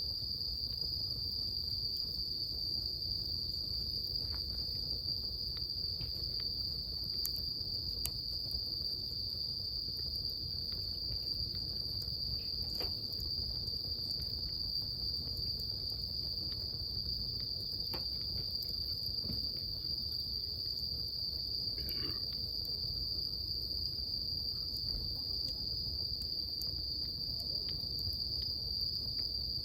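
Insects, crickets by their sound, chirring in one steady, unbroken high-pitched trill, with a few faint crackles from the bonfire and a low rumble underneath.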